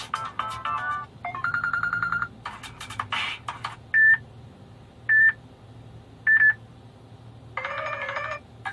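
Phone ringtones previewed one after another, each cut off after about a second: a short melody, a fast repeating tone, another brief tune, then three single sharp beeps about a second apart, which are the loudest, and another melody near the end.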